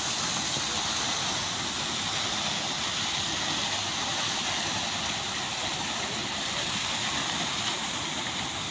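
Water jets of a large park fountain splashing steadily into the stone basin.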